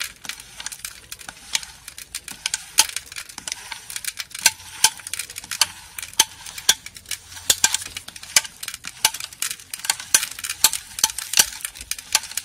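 Seed metering unit of a homemade hand seeder running, its notched disc turning through a hopper of oat seed: irregular light clicks and a grainy rustle, several clicks a second, as the seeds are picked up and dropped.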